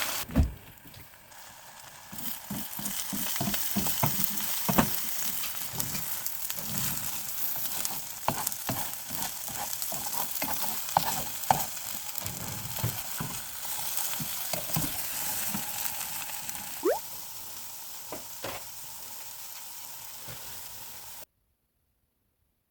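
Food sizzling in a frying pan while being stirred, with many clicks and scrapes of a utensil against the pan. The sizzling cuts off abruptly near the end.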